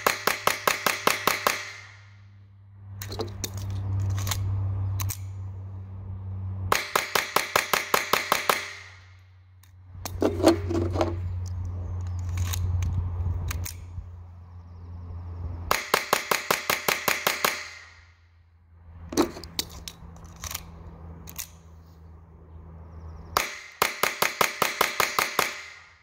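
Ruger Mark IV .22 LR pistol fired as fast as possible in four strings of about ten shots each, at roughly four to five shots a second, with single clicks of magazine changes in the pauses between strings. It cycles every round without a malfunction, running both copper-plated and exposed-lead soft-point loads.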